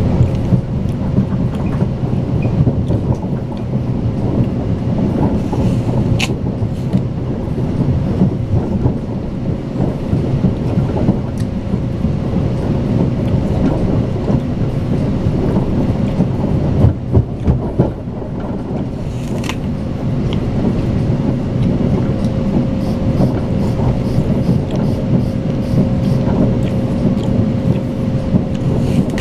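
Running noise inside a Talgo (Strizh) high-speed passenger car at speed: a steady rumble of wheels on track with a constant hum, and a few sharp knocks a little past halfway.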